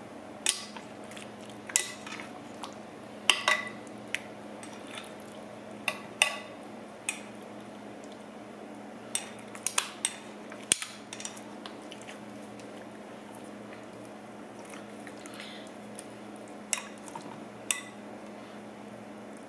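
Metal kitchen tongs clicking and clinking against a ceramic casserole dish as raw chicken breasts coated in barbecue sauce are turned over: scattered short knocks with quiet gaps between them.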